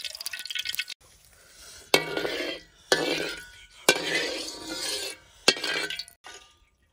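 A metal spatula scraping around the inside of an oiled iron wok: four strokes, each starting with a sharp clink against the pan and trailing into a short scrape. Before them, in the first second, a crackling hiss from the oil in the pan.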